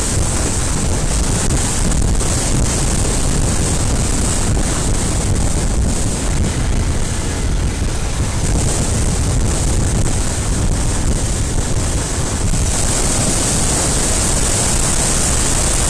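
Wind rushing over the microphone of a motorcycle-mounted action camera while riding, a steady loud rush with a low rumble of road and engine underneath. About three-quarters of the way in the rush turns brighter and hissier.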